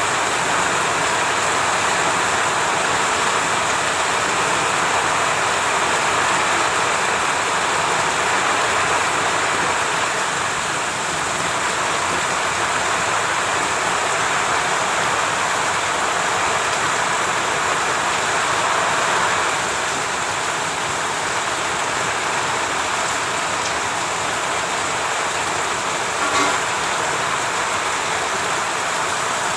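Heavy rain pouring down as a steady, even hiss, easing a little about two-thirds of the way through.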